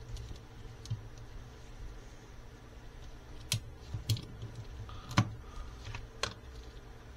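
Plastic joints and parts of a transforming robot action figure clicking as the figure is handled and posed, a few sharp scattered clicks over a faint steady hum.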